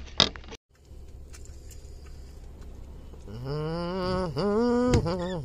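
A short tap just after the start, then, about three seconds in, a man's voice hums a long 'mmm' that dips in pitch twice and runs on to the end.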